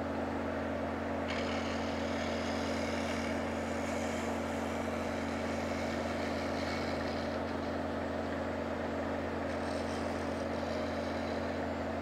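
Wood lathe motor running with a steady hum while a turning tool takes a light shear cut across the face of a small spinning wooden knob. A faint hiss of cutting comes in about a second in and wavers as the tool moves.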